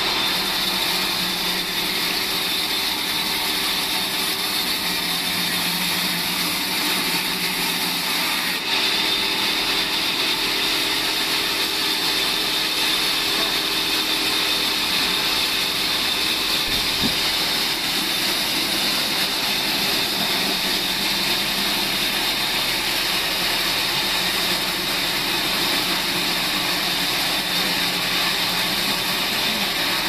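Large band saw running steadily while a timber is fed through its blade: a continuous machine noise with a steady high tone, the low hum changing slightly about nine seconds in.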